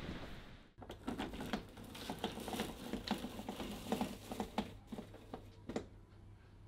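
Faint, irregular clicks and taps over a low steady hum, starting about a second in.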